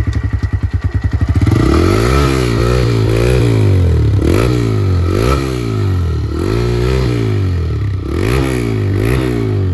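TVS Raider 125 single-cylinder motorcycle engine idling for about a second with distinct firing pulses, then revved in repeated short throttle blips. This is its stock exhaust note, which the owner likens to a bike with its rear dB killer removed.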